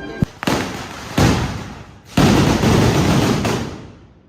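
Firecrackers going off in a traca: a sharp crack just after the start, bursts at about half a second and a second in, then a longer dense run of crackling bangs from about two seconds that dies away before the end.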